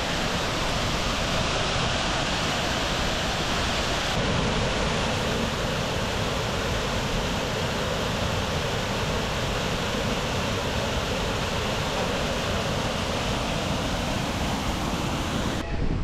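Water gushing out through a dam's sluice shutter and churning into the stone channel below: a steady, loud rush that breaks off abruptly at the very end.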